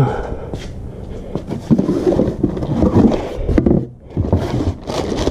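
Rustling and handling noise as things are moved by hand, with a plastic bag crinkling near the end.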